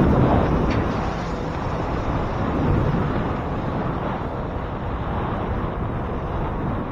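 Wind buffeting the microphone while riding a bicycle: a steady low rumble of noise that swells and eases slightly.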